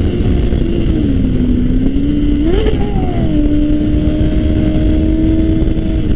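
Sport motorcycle engine running at highway speed under heavy wind rush. Its pitch drops about a second in, rises briefly a little after two seconds in, then holds steady.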